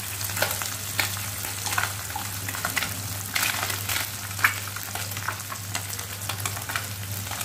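Small fish frying in hot oil in a kadhai: a steady sizzle with frequent crackles. A wooden spatula stirs and turns the fish. A steady low hum runs underneath.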